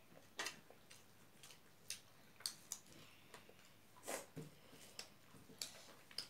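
Eating sounds from a meal eaten by hand: light, irregular clicks and smacks of chewing and of fingers working rice on plates, one or two a second.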